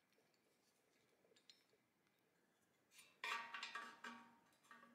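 Faint clicks of small parts being handled, then about three seconds in a sheet-metal clank that rings for about a second, and a smaller clink near the end. The source is the torpedo heater's stamped metal burner head plate being handled.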